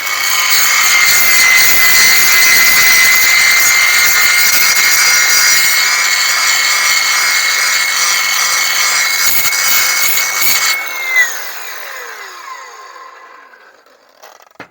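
Large angle grinder with a 7.5-inch grinding wheel grinding down steel: a steady high motor whine under harsh grinding noise for about eleven seconds. The grinder is then switched off and winds down, its whine falling away.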